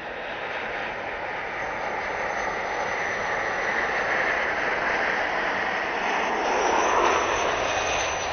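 Jet engines of a Boeing 737-700, its twin CFM56-7B turbofans, running as the airliner passes low on landing and touches down. A steady rushing roar grows louder and is loudest about seven seconds in.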